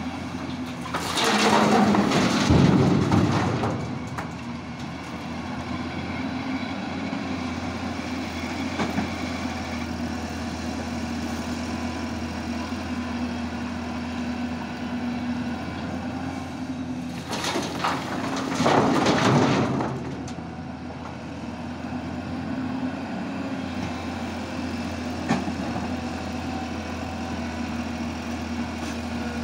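Diesel engine of a Hyundai crawler excavator running steadily. Twice, near the start and again past the middle, there is a loud rush of rock and soil as a bucketload is dumped into the steel bed of a tipper truck.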